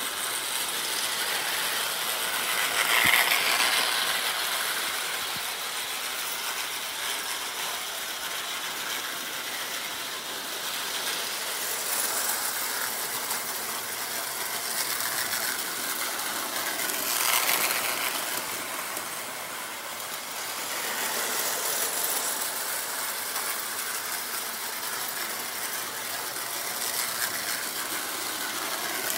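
Prewar American Flyer tinplate O gauge toy train running on three-rail track: a steady mechanical clatter of wheels and gearing that swells louder several times as the train passes near.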